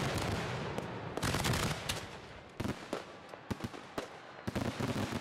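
Fireworks display heard from the firing site: a dense barrage of overlapping bangs and crackle that thins after about two and a half seconds into separate sharp reports.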